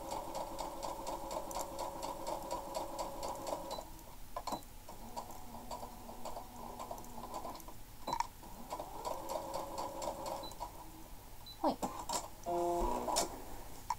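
Compact electric sewing machine stitching a seam in short runs, stopping and starting again about four seconds in and about eight seconds in. It stops near ten seconds, followed by a few clicks and a short hummed note near the end.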